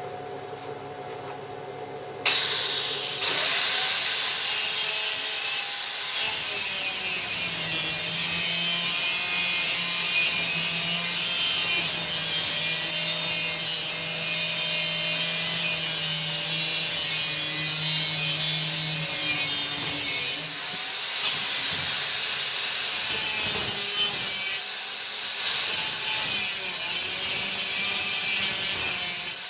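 Power tool cutting, a loud, steady hiss over a wavering motor tone that starts suddenly about two seconds in and eases briefly about two-thirds of the way through.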